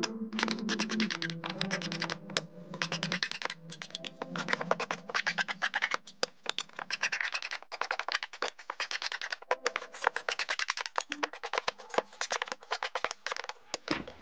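A hand file rasping along the rough-cut edges of cedar boards in quick, repeated scraping strokes, smoothing the sawn edges. Soft background music runs under the strokes for about the first half.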